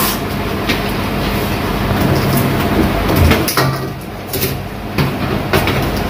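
Handling noise of washing-machine hoses: the plastic inlet and drain hoses knock and click against the machine's sheet-metal back and side panels a few times, over a steady rumbling background noise.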